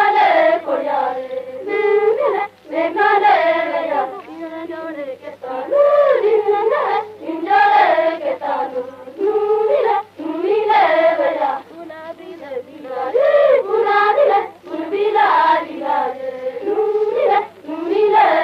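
Maria Gond folk song in Gondi, sung by high voices in short repeated phrases with brief breaks between them. It is an archival field recording with a steady low hum under the singing.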